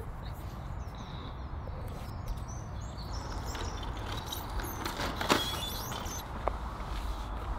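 Wind buffeting the microphone with a low, uneven rumble, and a faint knock about five seconds in.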